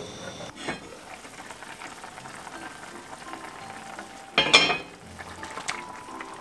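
Pork belly braise simmering and sizzling in a Le Creuset enamelled cast-iron Dutch oven, with a brief knock as the lid is lifted off. About four and a half seconds in, a louder splash and sizzle as peeled boiled eggs are tipped from a bowl into the sauce.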